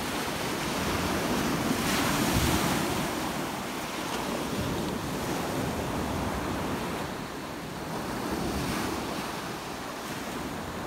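Sea surf washing onto a beach, with wind buffeting the microphone. The wash swells about two seconds in and again around eight seconds.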